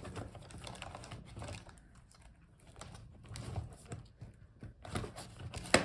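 Light clicks and rustling of a laptop's plastic and metal parts being handled as its hinges are unfolded, with one sharp click near the end.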